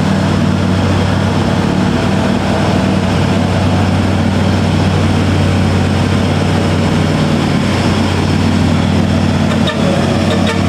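Diesel engine of a loaded Hino 500 three-axle truck pulling slowly up a steep grade in a low gear, a steady low drone that holds without revving up or down.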